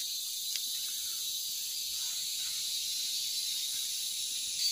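Steady, high-pitched chorus of forest insects, an even shrill hiss with no engine or voice over it.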